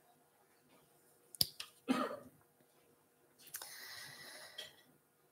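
Handling noise at a lectern: a sharp click about a second and a half in, a short rustle just after, then a softer rustle lasting about a second.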